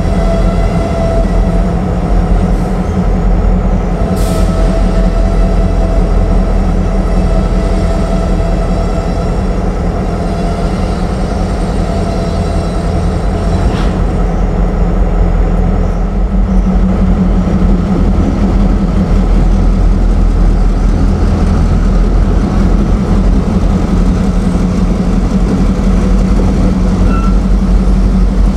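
Diesel freight locomotives idling and working: a loud, steady low engine drone with a steady tone over it. It swells somewhat in the second half as a locomotive draws closer.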